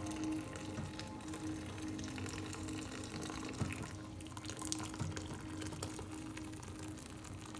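Hot au jus being poured through a paper-towel-lined mesh strainer into a bowl: a steady trickle and splash of liquid.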